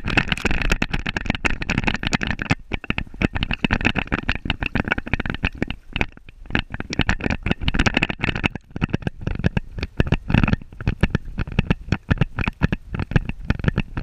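Water splashing and sloshing against a camera strapped to a swimming border terrier's back as the dog paddles, a dense, irregular crackle of knocks and rumbles. It starts abruptly as the dog goes into the water.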